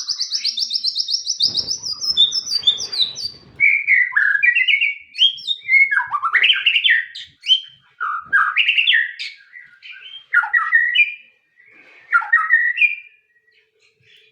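White-rumped shama (murai batu) singing: a fast rapid trill at the start, then a run of varied short whistled phrases, ending about a second before the close.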